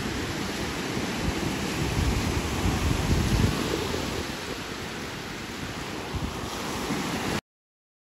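Beach ambience: a steady wash of sea surf with wind buffeting the microphone in uneven low gusts. It cuts off suddenly near the end.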